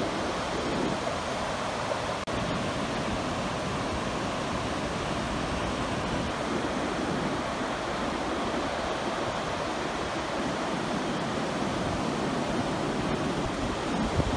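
Ocean surf breaking on a sandy beach: a steady, even wash of noise.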